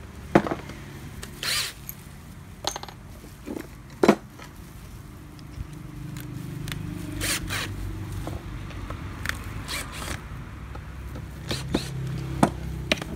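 Scattered sharp clicks, knocks and short scrapes of a flat-blade screwdriver prying and working at the field coil and screws of an opened rotary hammer drill motor, with the loudest knock about four seconds in. A low steady hum comes in about halfway through.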